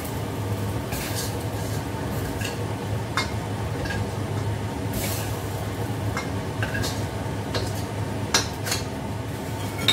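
Metal spatula scraping and tapping against a steel wok as stir-fried vegetables are scooped out onto a plate, with scattered clinks, over a steady low hum.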